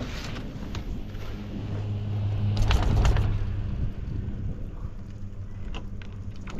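Chairlift running while being ridden: a steady low mechanical hum, with a louder rumbling clatter about three seconds in.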